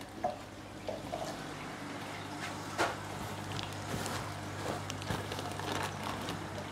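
Plastic fish-shipping bags and box liner being handled: soft rustling and crinkling with a few short light clicks, the sharpest about three seconds in, over a steady low hum.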